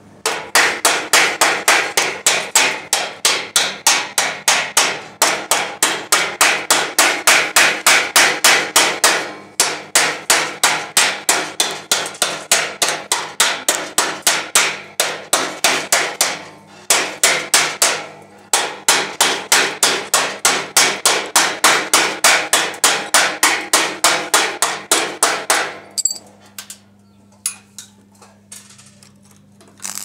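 Hammer chipping slag off fresh arc welds on a steel door hinge: a long run of rapid metal-on-metal strikes, several a second, with a few short breaks, stopping a little before the end.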